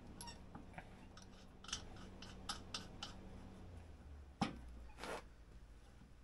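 Light metal clicks and small scrapes as the bolt and washer of a Comet Duster snowmobile secondary clutch are fitted by hand. There is a sharper click about four and a half seconds in and a short scrape just after.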